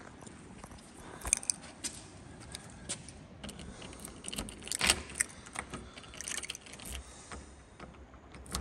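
Keys jangling and clicking in a door lock as a storage-room door is unlocked, with scattered short metallic rattles.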